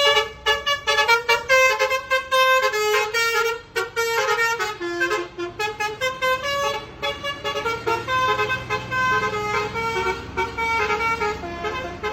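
Basuri telolet musical bus horn playing a fast tune of short toots, the notes stepping up and down in pitch.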